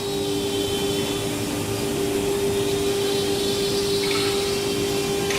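CNC router working wood or board, its spindle running at speed with a steady whine over a broad rushing noise.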